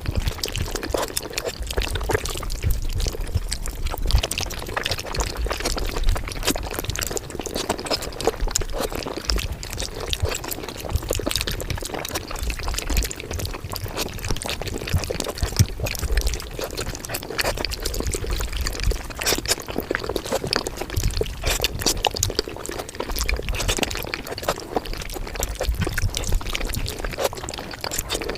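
Mukbang eating sounds played back at five times speed: a continuous, rapid patter of chewing and mouth clicks.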